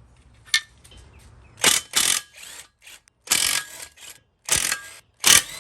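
Half-inch drive ratchet clicking in about five short bursts of quick strokes as it turns out cylinder head bolts.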